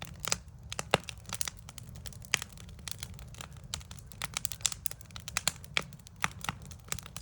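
Backyard wood fire crackling, with irregular sharp pops of varying loudness, the strongest about a second in and near two and a half seconds, over a low steady rumble.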